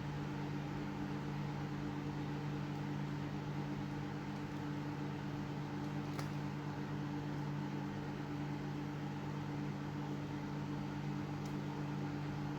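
Microwave oven running with a steady hum and fan noise while it heats a potato sealed in a plastic bag. There is a faint tick about six seconds in.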